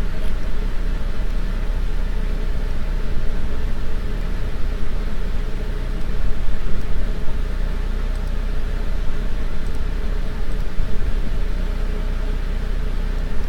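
Steady low hum and hiss of background noise. The level stays even, with no separate knocks or events.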